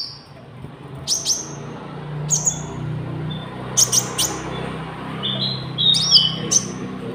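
Konin songbird calling: short, sharp high chirps and quick down-sweeping whistled notes, repeated every second or so, over a low steady hum.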